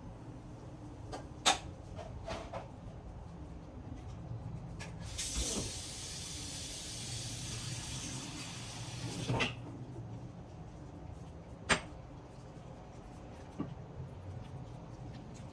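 Kitchen work sounds: sharp clicks and knocks of utensils and cupboards. A steady hiss starts abruptly about five seconds in and stops about four seconds later.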